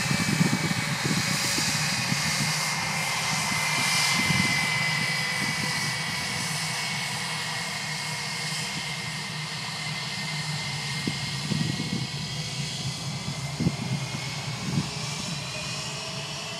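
Airbus A320's two IAE V2527-A5 turbofan engines whining and rumbling at low taxi thrust as the jet rolls slowly past. The high whine sinks slightly in pitch and climbs again toward the end.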